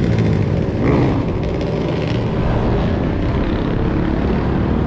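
Steady low rumble of passing motor vehicle traffic, with a continuous engine hum.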